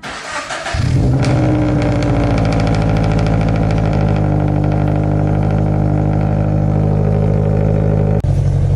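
Subaru BRZ's 2.0-litre flat-four on a cold start, with a JDL unequal-length header and Invidia N1 cat-back exhaust. It catches about a second in and settles into a steady, loud cold idle with the boxer rumble the header gives it. There is a brief break in the sound near the end.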